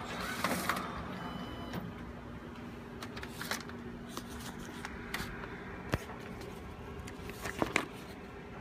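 Paper being handled and the plastic trays of a bizhub C554e copier clicking and knocking now and then, a few sharp clicks with the strongest about six seconds in and two close together near the end, over a steady low hum.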